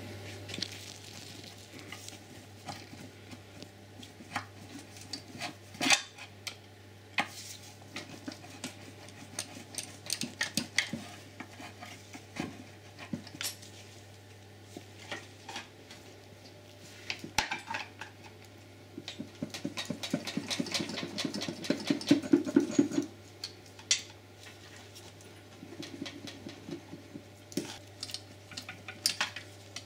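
Scattered metal clinks, knocks and scrapes of a pry bar and tools working at the joint between an engine and its automatic gearbox bell housing to lever them apart. There is a denser run of rattling and scraping about two-thirds of the way through, over a faint steady low hum.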